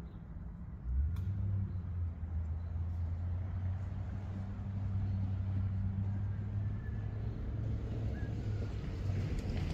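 Chevrolet Trailblazer's engine running at idle, heard at its tailpipe, which hangs down below the bumper. It is a steady low exhaust hum that gets louder about a second in and then holds.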